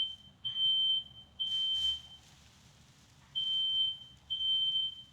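Smoke alarm sounding, set off by smoke in the room: a loud, high single-tone beep in the standard pattern of three half-second beeps, a pause, then the next set beginning. A brief rustling noise comes about a second and a half in.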